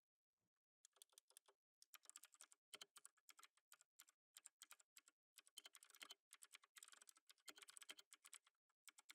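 Typing on a computer keyboard: quick runs of soft key clicks in bursts, with short pauses between them.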